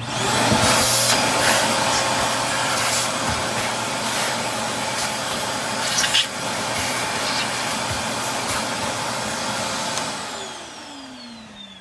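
Backpack vacuum cleaner switched on: the motor spins up to a steady high whine with a rush of suction noise and a few sharp clicks, sucking up drywall dust and debris. About ten seconds in it is switched off and winds down with a falling pitch.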